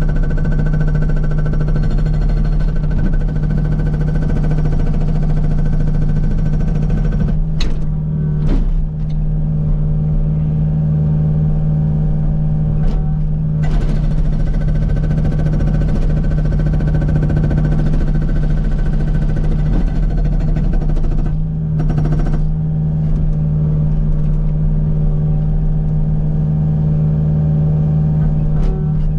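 Kubota U55 mini excavator's diesel engine running steadily, heard from in the cab, with a few brief knocks.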